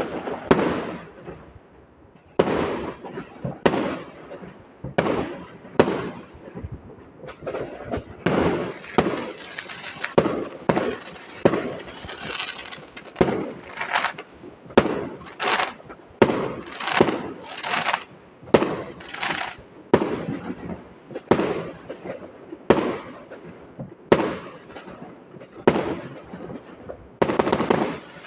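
Fireworks going off in a long run of bangs, about one every second or so, each dying away quickly before the next.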